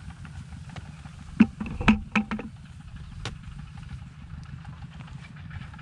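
Low wind rumble on an action camera's microphone, with a quick cluster of four or five knocks about one and a half to two and a half seconds in and a single click a little later.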